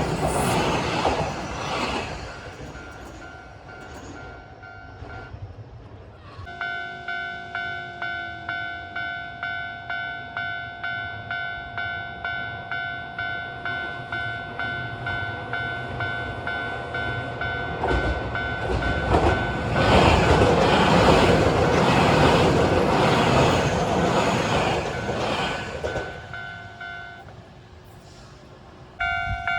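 Japanese level-crossing warning bell ringing in an even, repeating clang, with a Keio 1000 series electric train rumbling past over the crossing partway through. A passing train fades away at the start, and the bell stops near the end, then starts again.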